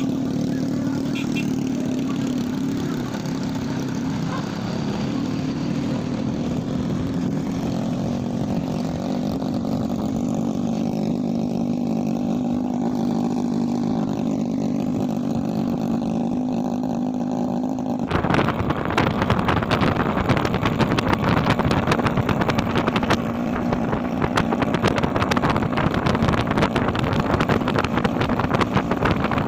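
Motorcycle engine running steadily while riding along a road. About two-thirds of the way through it changes abruptly to louder wind buffeting on the microphone over the engine.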